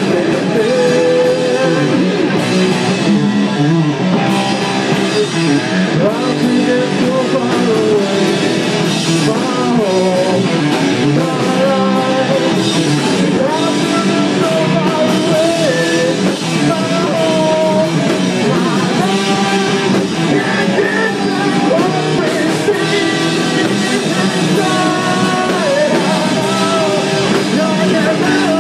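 Live rock band playing: a vocalist singing into a handheld microphone over electric guitar, bass guitar and a drum kit, loud and without a break.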